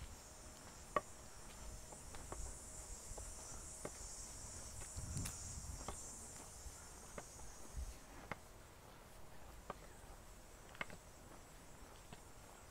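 A steady high-pitched drone of summer insects in the trees, swelling around the middle and easing off after. Light footsteps on a paved path tick along about once a second underneath, with a sharper one about a second in.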